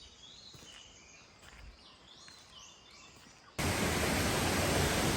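Faint birdsong: scattered short chirps. About three and a half seconds in, a much louder steady rushing noise cuts in abruptly and stops just as abruptly under two seconds later.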